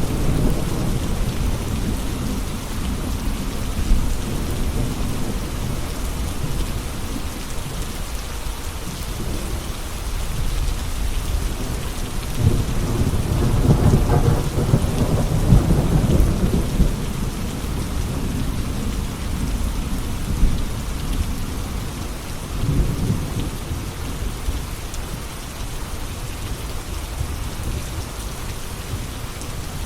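Steady rain falling, with rolling thunder: a long low rumble swells and fades about halfway through, and a shorter one follows later.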